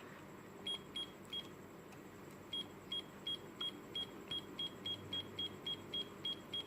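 Cube digital alarm clock beeping with button presses while its minutes are being set: three short high beeps, then a quick even run of about three beeps a second.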